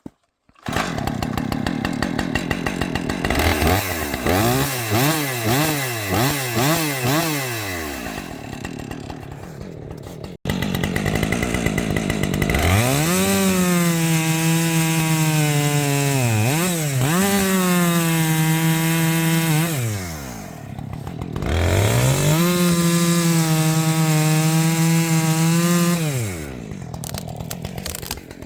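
Husqvarna 545 50cc two-stroke chainsaw running: revved in about five quick throttle blips, then held at full throttle for several seconds at a time, twice, with the pitch dipping under load as it cuts through a log.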